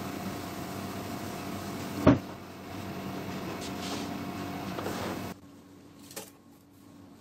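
A steady hum with one sharp knock about two seconds in. A little past halfway the hum drops away, and a few light clicks follow as a tape measure is pulled out over the board.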